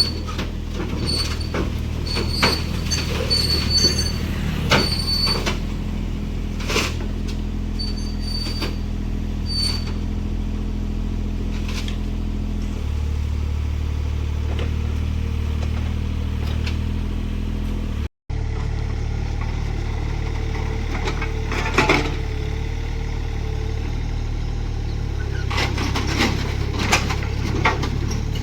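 Mini excavator's diesel engine running steadily, with scattered clanks and knocks from the machine working and intermittent high squeals in the first ten seconds. The engine note shifts about halfway through, and the sound cuts out for an instant a little later.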